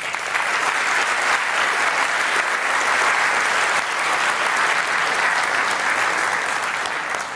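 Audience applauding, a steady clapping that starts at once and tails off near the end.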